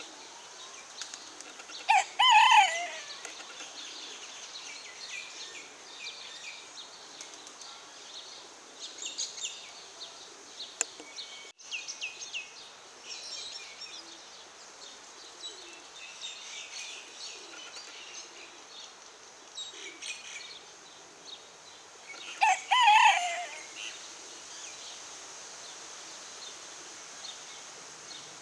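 Pekin bantam rooster crowing twice, two short high-pitched crows about twenty seconds apart, each about a second long.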